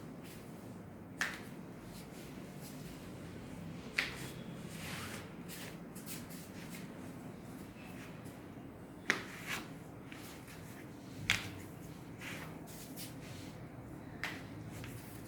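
Scattered sharp clicks and taps, about half a dozen, with the loudest pair close together in the middle, over a low steady hum.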